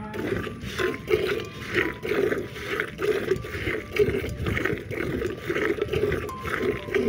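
A cow being hand-milked: milk squirts in quick jets from its teats into a metal pail of frothy milk, about two to three squirts a second in a steady rhythm.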